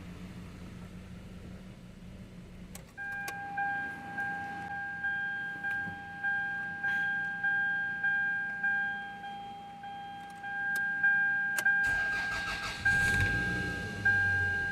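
A freshly overhauled Toyota four-cylinder engine runs with a steady low hum, then cuts out about three seconds in. A car's dashboard warning chime then dings over and over, about three dings every two seconds. Near the end the engine cranks and starts again.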